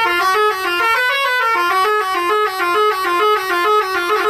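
Telolet bus horn, a multi-tone musical horn, playing a fast melody of short notes that step up and down several times a second.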